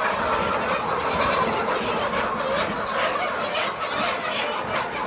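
A flock of chickens clucking and calling all together, a dense, steady din of many overlapping calls.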